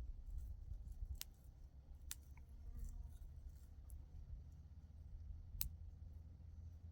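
A few sharp, separate clicks over a low steady rumble, the three clearest about a second in, about two seconds in, and a second and a half before the end.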